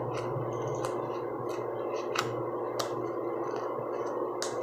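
Fingers kneading and poking slime in a plastic tub, giving a few sharp clicking pops, over the steady hum of a ceiling air-conditioning vent.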